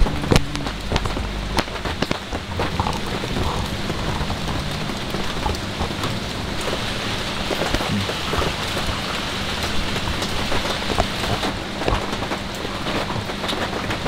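Steady rain pattering, with many sharp individual drop hits, and a faint steady low hum beneath.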